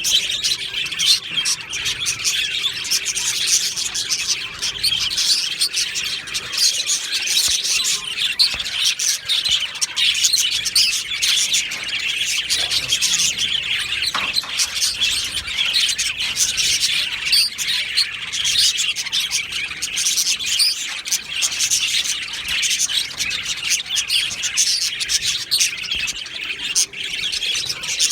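A colony of budgerigars chirping and warbling together, a dense, continuous chatter of many overlapping high chirps.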